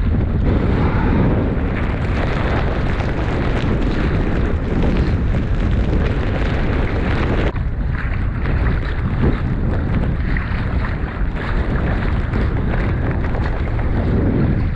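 Strong gusting wind buffeting the microphone, a steady low rumble that rises and falls.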